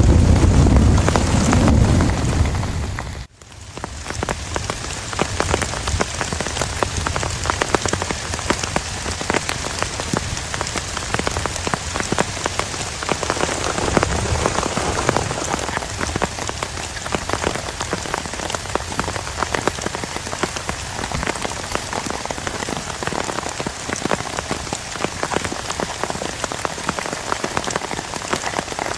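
Heavy rain falling steadily, a dense patter of drops. For the first three seconds a loud low wind rumble on the microphone covers it, then cuts off suddenly.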